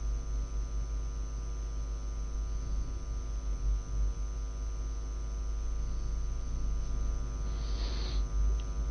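Steady electrical mains hum with hiss in the recording, a stack of unchanging tones; a short soft hiss near the end.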